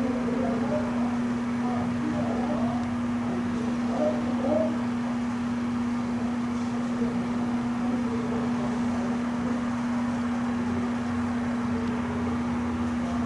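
A steady hum with a single low, unchanging tone, like a machine or electrical appliance running. Faint, indistinct voices come and go in the background.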